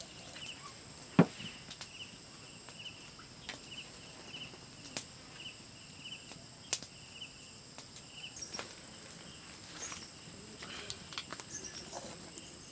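Insects trilling steadily, with a chirp repeating about twice a second, while a metal spoon clicks and scrapes against small clay pots. A louder knock about a second in stands out.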